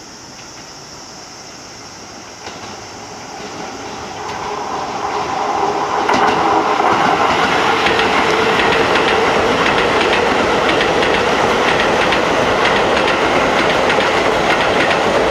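Keisei 3000 series electric commuter train approaching and passing close by. It grows louder over the first six seconds, then holds a steady, loud run of wheel-on-rail noise with rapid clicks as the cars go by.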